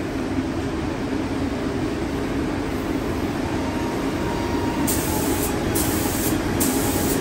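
Gravity-feed spray gun spraying clear coat onto sanded headlight lenses. It gives three short hisses about five, six and six and a half seconds in, each lasting about half a second, over a steady low rumble.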